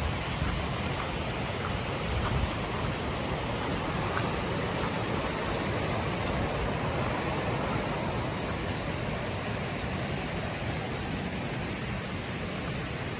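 Steady rush of river water flowing over rocks, an even full-range noise with no breaks.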